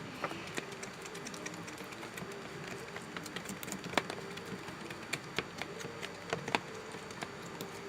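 Irregular light clicks and taps of a spoon and containers being handled while slime ingredients are mixed in a bowl.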